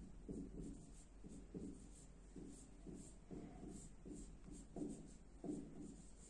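Felt-tip marker writing on a whiteboard: a faint run of short, irregular strokes as letters are drawn.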